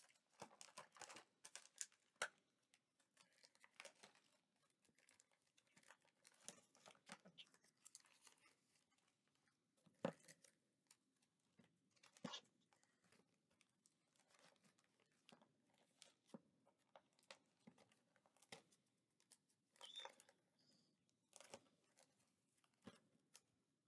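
Faint, intermittent rustling, crinkling and tearing of loose material handled by hand, with scattered small clicks and taps.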